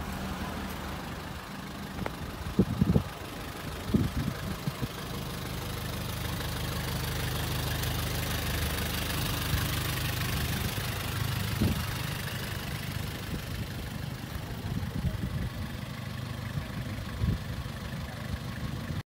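A vehicle engine idling with a steady low hum, over a hiss of outdoor noise, with a few short thumps about three and four seconds in and again near twelve and seventeen seconds.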